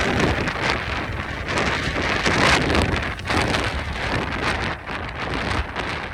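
Strong Santa Ana wind gusting, with a loud rushing hiss and a low rumble of wind buffeting the microphone. It peaks about two and a half seconds in and eases off a little after that.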